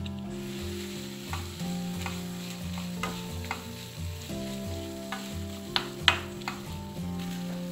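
Ash plantain peels and sprats frying in a nonstick pan while a utensil stirs them, with a dozen or so sharp scrapes and taps against the pan, loudest a little after the middle. Background music with a pulsing bass runs underneath.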